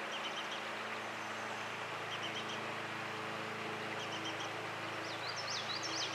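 Streamside outdoor ambience: a steady rush of flowing stream water with a low steady hum under it. Small birds chirp above it, with a run of quick high whistled notes near the end.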